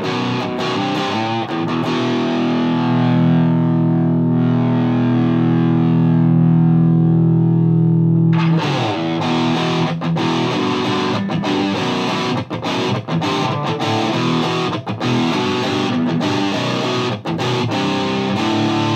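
Distorted electric guitar, a Gibson Les Paul through a Mesa Boogie Dual Rectifier tube amp in its high-gain Modern mode and a Marshall 1960A 4x12 cabinet, playing a riff: a few picked notes, a chord held ringing for about six seconds, then a quicker rhythm part with brief stops.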